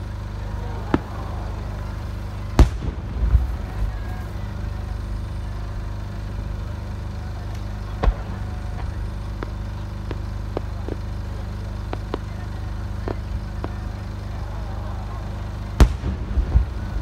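Ten-inch aerial firework shells bursting at a distance: a loud boom about two and a half seconds in and another near the end, each followed by about a second of rumbling echo, with a sharper bang around eight seconds and fainter pops between, over steady low background noise.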